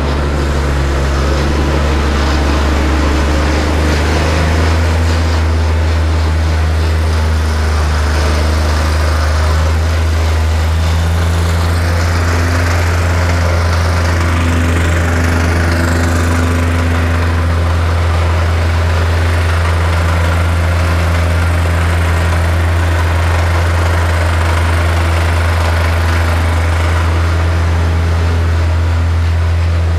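Vibrating plate compactor running steadily as it is walked over loose sand, tamping it down: its small engine and vibrating plate make a constant deep hum.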